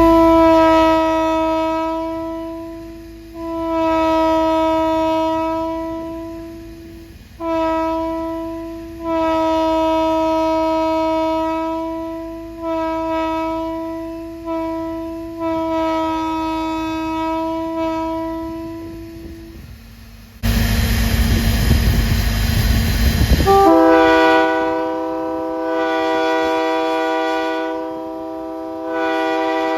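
Locomotive air horn blown on compressed air, giving about seven short and long blasts. Near two-thirds of the way through there is a loud rushing noise for about three seconds. Then a different multi-note chime horn sounds one long blast that runs on, swelling twice.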